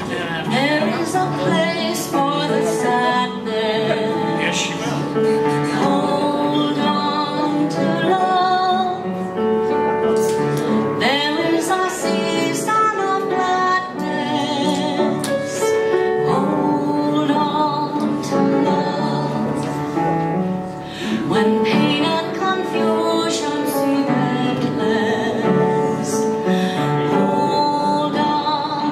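A small group of singers, women's voices most prominent, singing a song with musical accompaniment.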